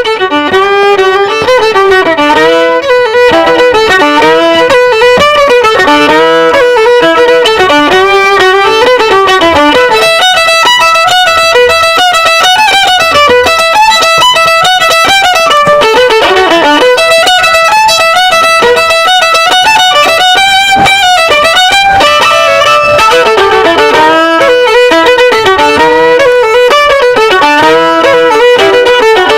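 Violin playing a melody, moving through quick runs of short notes at times.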